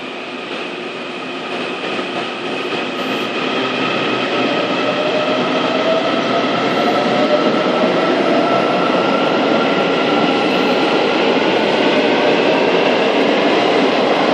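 Taiwan Railways EMU800-series electric multiple unit pulling away: its traction motors whine in several tones that rise steadily in pitch as the train accelerates. The wheel and track noise grows louder through the first half.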